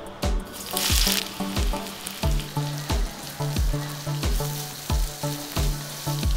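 Sliced onions hit hot oil in a wok about a second in with a burst of sizzling, then keep sizzling and frying as they are stirred with a wooden spatula.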